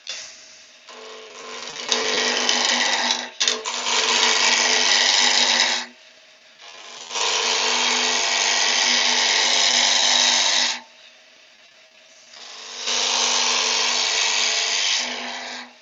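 Wood lathe spinning a handle blank while a continental spindle gouge rounds it down: three cutting passes of a few seconds each, the loud, rough noise of the cut over the lathe's steady hum, with short quieter gaps between passes.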